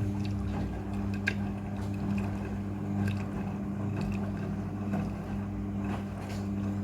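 Front-loading washing machine running a rinse with a blue carpet inside: a steady motor or pump hum, with water sloshing and small scattered clicks over it.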